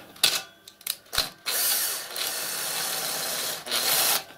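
Cordless drill-driver turning the worm screw of a jubilee clip (hose clamp) to loosen it. It gives a few short trigger blips, then runs in a steady whir for about two seconds with one brief dip, then a last short burst near the end.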